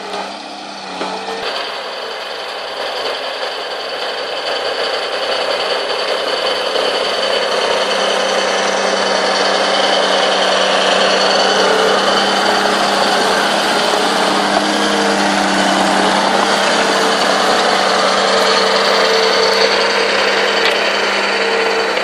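Small crawler bulldozer's diesel engine running under load as it pushes soil, with a high whine over the engine note. The sound grows louder and busier from about four seconds in and then holds steady.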